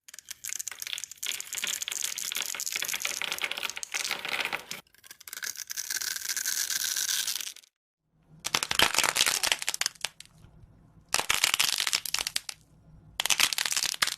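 Crackling, scratchy sounds of a material being mixed, in several short clips that start and stop abruptly.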